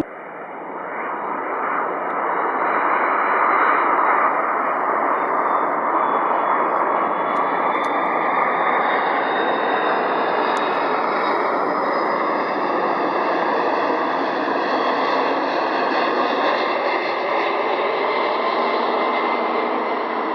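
Jet airliner's engines: a steady rush of jet noise with a high whine above it. It swells over the first couple of seconds, then holds steady.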